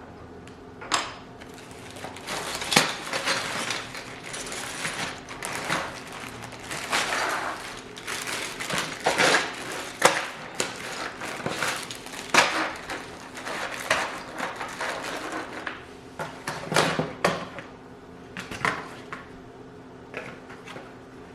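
Hard plastic clacking of PBT pudding keycaps on a mechanical keyboard being typed on, in irregular bursts of keystrokes with short pauses between.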